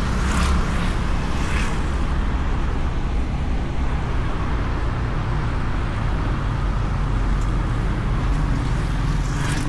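Honda Beat scooter on the move, its small single-cylinder engine running steadily under a continuous low rumble of wind and road noise on the bike-mounted camera. A few brief rushes of noise come near the start and again near the end.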